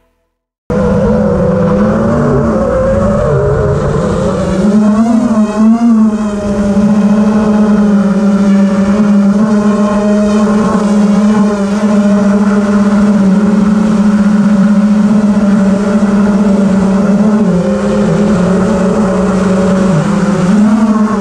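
Small FPV quadcopter drone's electric motors and propellers whining, heard up close from the drone's own camera. It starts abruptly a little under a second in, then holds a fairly steady pitch with small rises and dips as the throttle changes.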